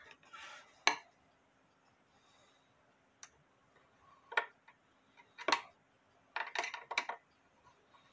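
Sharp metal-and-glass clicks and knocks as the brass-rimmed glass bezel of a clock is handled and fitted at its hinge on the wooden case: one click about a second in, single knocks a little later, then a quick run of several clicks near the end.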